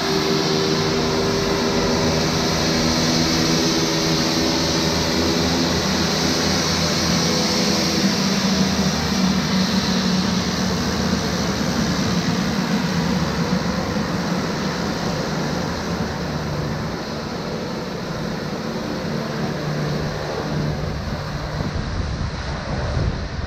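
Twin-engine turboprop plane's engines and propellers running as it taxis and turns on the runway to line up for takeoff: a steady propeller drone with several held tones and a high turbine whine, easing a little in the second half.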